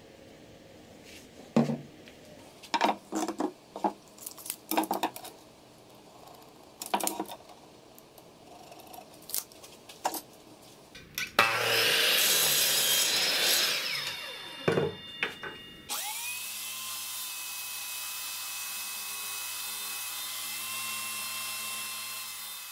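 Scattered sharp clicks and knocks of hardware being handled, then a miter saw cutting through a wooden pole for about two seconds. A couple of seconds later a corded electric drill clamped in a vise spins up and runs at a steady pitch, turning a wooden dowel that is sanded with sandpaper.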